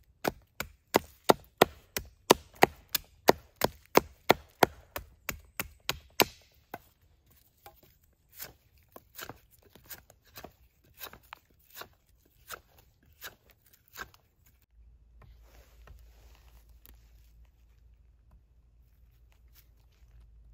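A Terava Skrama 240 carbon-steel bush knife chopping wood. A quick, even run of hard chops, about three a second, lasts some six seconds. Then come slower, lighter strikes that stop about two-thirds of the way in.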